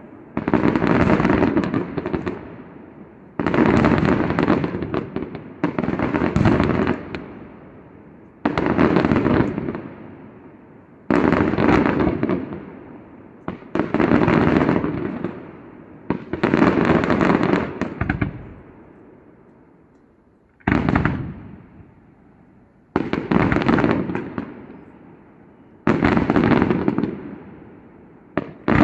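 Aerial fireworks shells bursting in a rapid series, about ten salvos, each a sudden volley of bangs followed by crackle that fades out over a second or two, with a brief lull about two-thirds of the way through.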